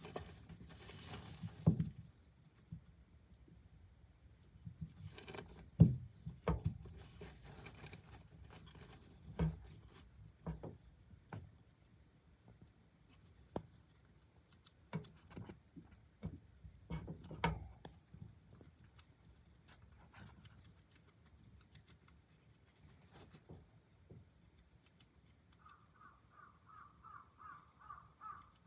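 Syrian hamster gnawing on a fried chicken bone: scattered sharp crunches and clicks of its teeth, with rustling in the wood-shaving bedding. Near the end comes a quick even run of ticks, about four a second.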